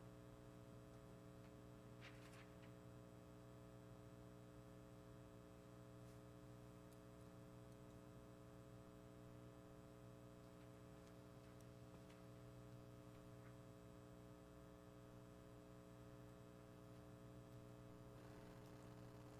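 Near silence: a faint, steady electrical hum, with a soft click about two seconds in.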